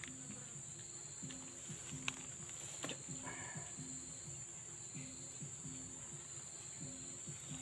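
Steady, even high-pitched drone of insects in riverside vegetation, with a faint low note repeating a little under twice a second. Two light clicks come about two and three seconds in.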